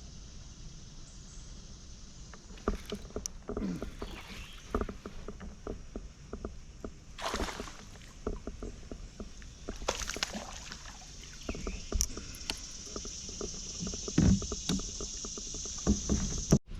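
Knocks, taps and clatter on a kayak, with a few longer swishes, over a steady high hiss that grows louder near the end.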